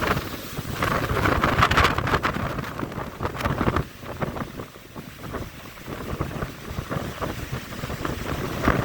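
Strong onshore wind buffeting the microphone over the rush of breaking surf; the gusts ease off about four seconds in and build again near the end.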